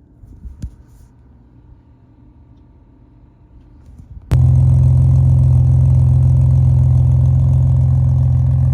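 A few seconds of low background with a couple of faint clicks, then a BMW's engine running steadily cuts in abruptly about four seconds in, a loud deep steady hum.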